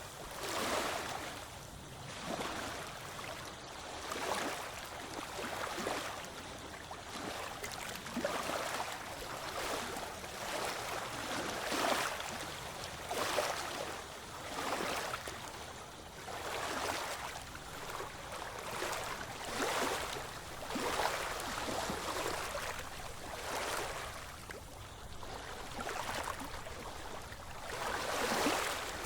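Small ocean waves washing ashore in a continuous hiss of surf that swells and fades every second or two.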